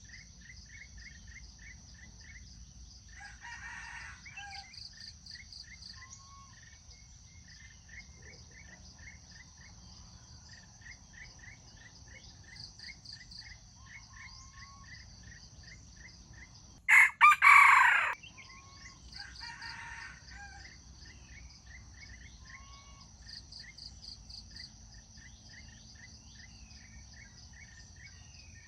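A rooster gives one short, loud crow about two-thirds of the way in, with fainter crows near the start and just after it. A steady chorus of crickets and insect chirps runs underneath.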